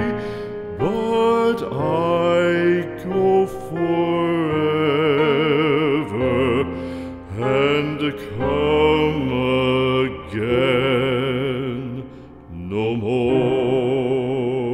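Music: a slow, song-like melody with a strongly wavering vibrato over held accompaniment, moving in phrases with short breaks between notes.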